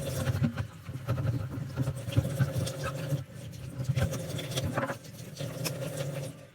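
Irregular rubbing, scratching and light knocking, with many small clicks, from a refrigerator being cleaned by hand, over a steady low hum.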